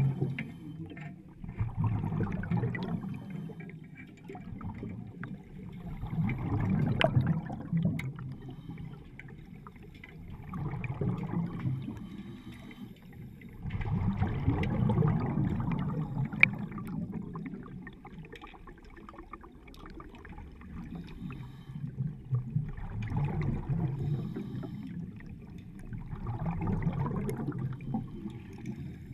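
Underwater bubbling and rushing from a diver's helmet exhaust, swelling and fading in waves every few seconds with each breath. A single sharp knock comes about halfway through.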